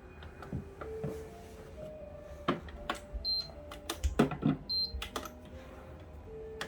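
Electric fan's push buttons being tapped and knocked, with two short high beeps from the fan about a second and a half apart.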